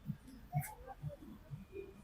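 Hands patting on the head or shoulders during a barber's massage: four soft, muffled thumps, about two a second, with a brief sharp click a little over half a second in.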